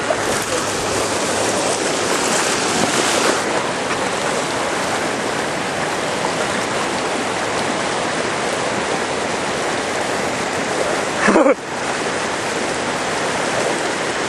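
Steady rush of water flowing in a stream channel, louder and hissier for the first three seconds or so.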